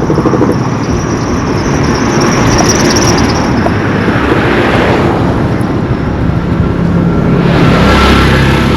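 Road traffic passing close by: the engine and tyre noise of motor vehicles swells as one goes past about three seconds in and another near the end, with a steady engine hum from the second.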